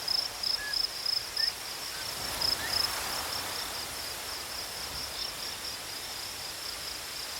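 An insect chirping steadily in a high, even pulse about four times a second, growing fainter in the second half, over a steady hiss of background noise. A few faint short chirps come in during the first few seconds.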